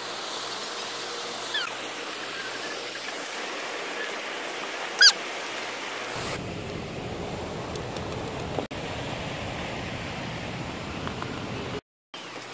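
Steady rushing outdoor noise with two short falling calls, the louder one about five seconds in. The noise turns lower and rumblier after a cut about six seconds in, and it drops out briefly near the end.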